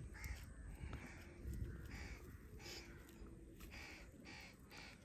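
Crows cawing faintly in the background, several short caws one after another.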